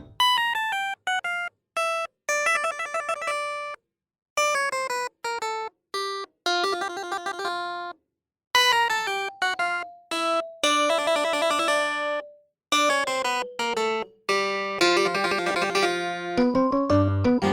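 Instrumental background music: a melody of short pitched notes and chords, cutting off abruptly into brief silences several times.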